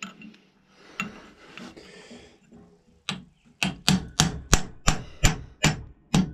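A small hammer tapping a cold chisel against the edges of a steel barrel's dovetail, to set a brass lug into it. A few seconds of quieter handling come first, then quick, even taps, about three a second.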